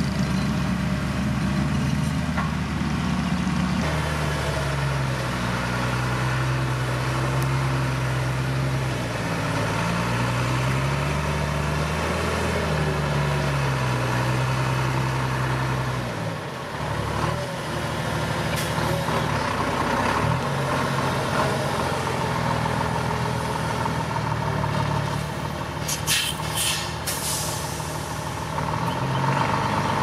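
Heavy diesel engines of a dump truck and road machinery running, their pitch rising and falling as they rev. Near the end, a few short, sharp hisses of truck air brakes.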